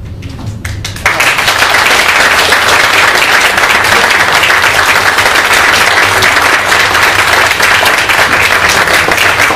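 A room of seated guests applauding, starting suddenly about a second in and keeping up loud, steady clapping.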